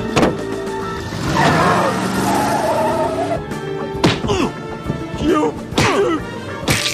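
Cartoon fight sound effects: a few sharp punch and whack impacts, with grunts and yells, over background music.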